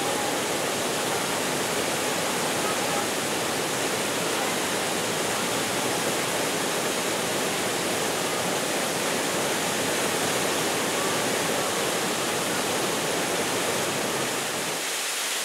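Waterfall cascading down rocks: a steady, even rush of falling water.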